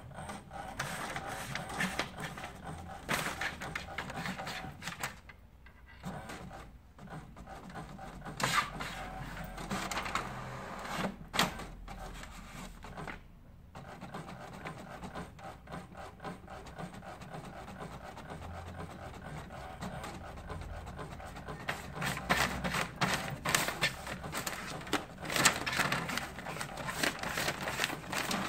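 Desktop printer printing pages, a continuous mechanical whirring with many clicks, pausing briefly twice.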